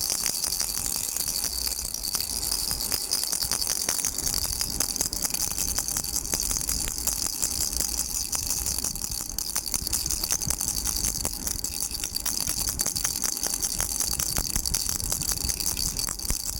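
A baby rattle shaken without pause, making a steady, fast rattle of many small clicks with a bright, high hiss.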